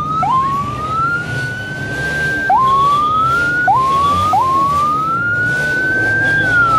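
Electronic siren on a car with a blue roof light bar, sounding a series of rising whoops: a slow rise that levels off, three short quick rises, then another long rise that holds and slowly falls in pitch near the end.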